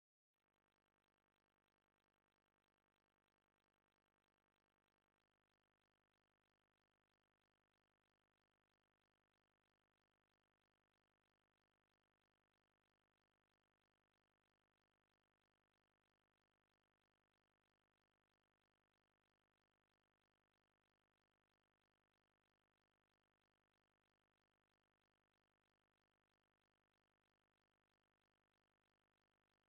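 Near silence: only a faint, steady background hiss, with no music or other sound.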